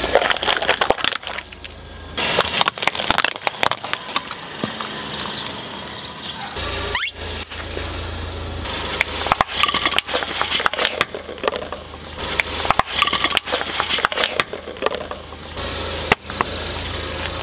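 Plastic objects cracking and crunching under a slowly rolling car tyre, in several separate bursts of crackles and snaps. About seven seconds in there is a brief rising squeal.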